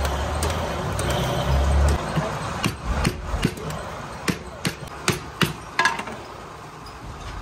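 Wooden block knocked against the wire winding of a welding-transformer coil, about eight sharp knocks over three seconds, preceded by a low rumble in the first two seconds.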